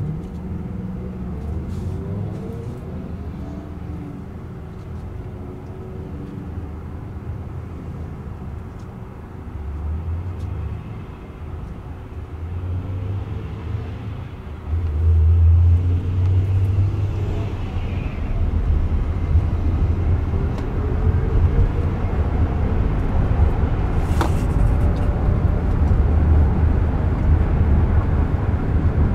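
Cabin noise inside an electric Jaguar I-PACE robotaxi: a low rumble while it stands at a light, with traffic swelling past. About halfway through it pulls away, and steady road and tyre noise fills the cabin as it drives on.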